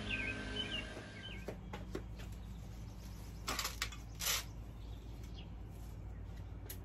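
A few birds chirp briefly at the start. Then comes handling noise as a potted plant is set down on a concrete porch: a couple of light knocks, and two short scraping or rustling sounds a few seconds in.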